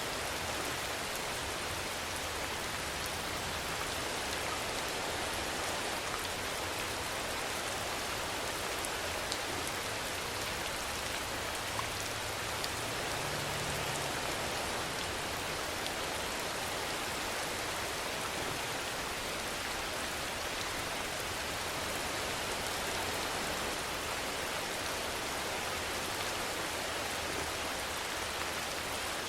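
Steady rainfall: a dense, even hiss of rain on surfaces, with a few single drops ticking out above it.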